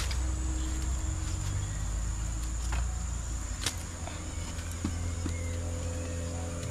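Steady high-pitched insect drone, with a low rumble underneath and a few sharp clicks.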